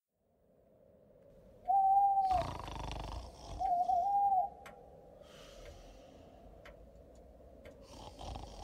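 An owl hoots twice, first one long hoot, then a wavering call, over slow snoring breaths.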